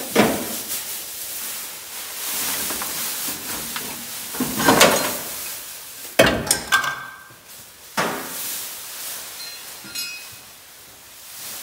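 Old Mustang car parts being handled and set down: several sharp clunks and knocks, with rustling and scraping in between.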